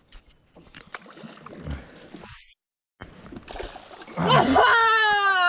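Faint water splashing and small knocks around a small fishing boat, then, about four seconds in, a long, loud cry from a person, held with its pitch slowly falling.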